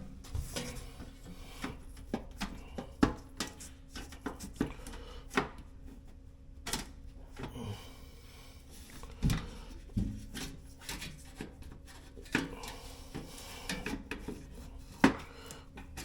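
A refrigerator's cover panel being handled and fitted back into place: irregular knocks, clicks and scraping rubs, with a faint steady hum underneath.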